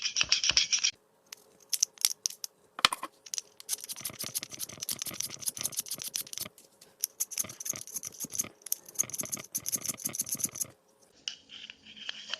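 Needle file scraping in quick, short strokes on the polymer trigger-group housing of a Hatsan Marine Guard pump shotgun, taking off casting flash that the owner blames for light primer strikes. The strokes pause briefly about a second in and again near the end.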